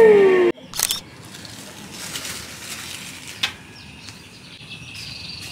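Background music cuts off suddenly about half a second in. Outdoor ambience follows: a steady hiss with a couple of short knocks, and faint bird chirps toward the end.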